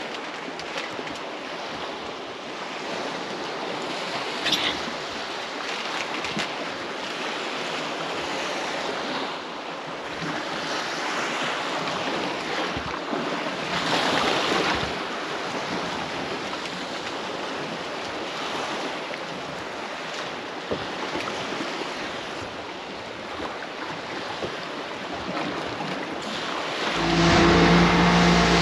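Wind and sea noise around a small boat drifting on a swell, with a few louder surges of water. About two seconds before the end an outboard motor comes in, running steadily and louder as the boat gets under way.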